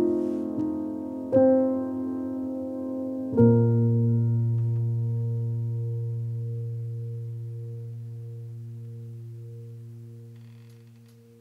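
Background piano music ending: a couple of chords, then a final chord struck about three and a half seconds in that rings on and slowly fades out.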